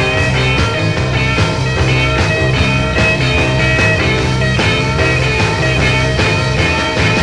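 Rock music with a steady beat, playing as a soundtrack.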